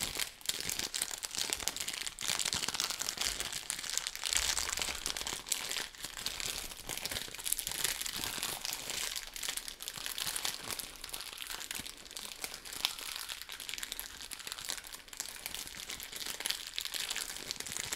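Thin, light plastic film crinkled and rubbed between the hands close to a field recorder: a continuous, dense crackle of fine ticks, used as foley for a crackling campfire.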